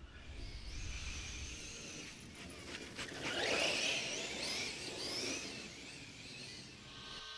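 Electric motor of a battery-powered RC truggy whining. Its pitch rises about three seconds in and wavers up and down as it is throttled.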